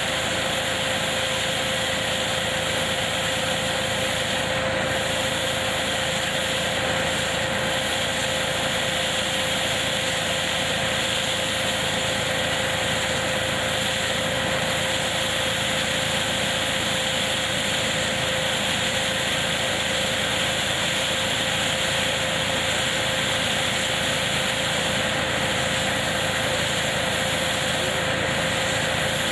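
Tractor-driven hazelnut harvesting machine running steadily, a constant machine noise with one steady tone running through it.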